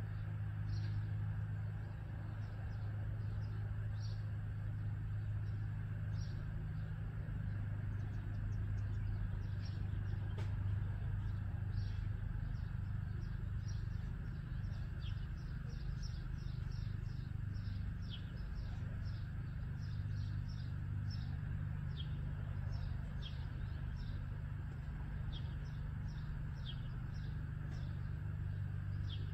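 Small birds chirping outdoors: many short, quick, falling chirps, scattered irregularly, over a steady low mechanical hum.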